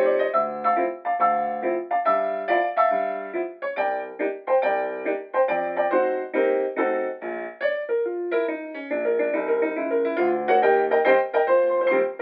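Background piano music, notes and chords played at an even, gentle pace.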